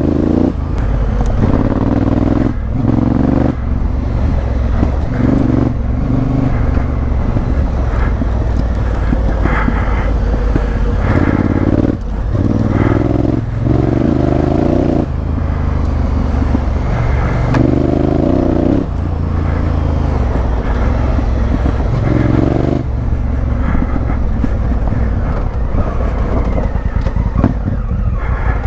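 Honda Africa Twin CRF1000L's parallel-twin engine running under way off-road, the throttle opened and shut every second or two so the engine note keeps rising and falling.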